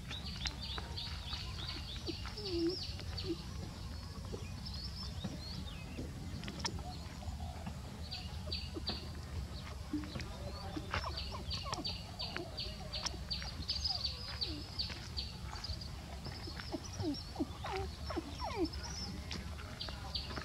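Birds chirping rapidly and repeatedly outdoors, with a few short low calls mixed in, over a steady low rumble.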